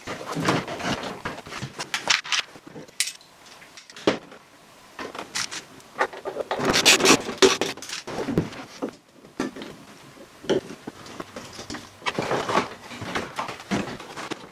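Hands working on a car's dashboard wiring and plastic trim: irregular rubbing, scraping and clicking of plastic parts and wiring looms, busiest about six to eight seconds in.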